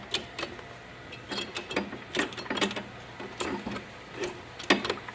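A nut being run down onto a snowmobile track stud by hand tool: irregular bursts of sharp metal clicks and rattles.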